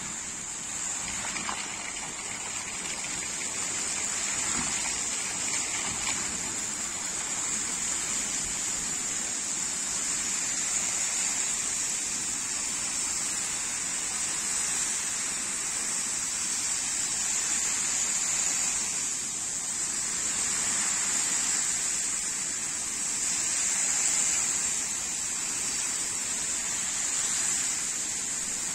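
Fountain water jets spraying high out of a river and falling back as a steady rushing hiss, swelling a little in the first few seconds as the jets rise.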